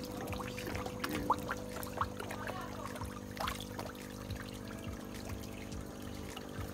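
Water trickling and splashing in a koi pond as a crowd of koi churn at the surface, with small splashes and slurps coming thickest in the first few seconds. A steady hum runs underneath.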